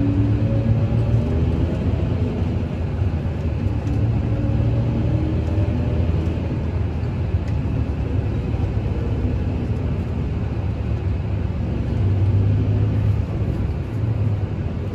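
Steady low engine rumble of heavy farm machinery at work: a Claas Jaguar forage harvester picking up and chopping grass silage, with tractors running alongside.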